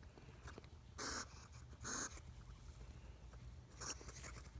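Pet hedgehog huffing: three short, breathy puffs about a second or two apart. It is the sound of a grumpy, annoyed hedgehog that is being handled.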